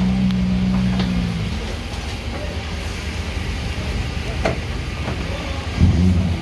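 A nearby engine running with a steady low hum that fades out about a second and a half in and comes back near the end. Over it come a few sharp metallic clicks from hand tools working in an engine bay.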